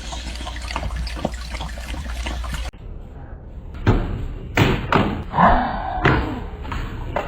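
A steady hiss for under three seconds, then after an abrupt cut a series of dull thumps about a second apart, with a short pitched voice-like sound among them.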